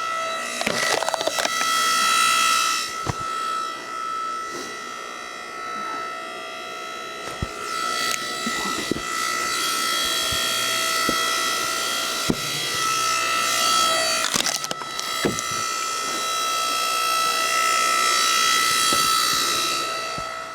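A 6.5-ton log splitter running with a steady whine, while wood cracks and splits under the ram a number of times.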